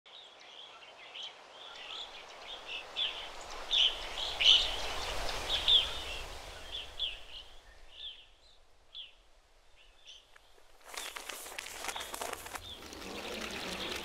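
Nature soundscape: birds chirping over a rush of wind that swells and fades, the birds thinning out by about ten seconds in. About eleven seconds in, a dense crackle of many small ticks starts abruptly, like rain on leaves.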